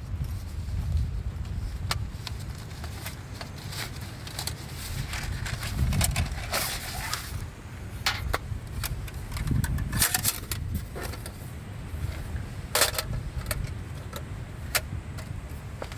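Scattered clicks, clinks and short rustles of gear being handled, over a steady low rumble.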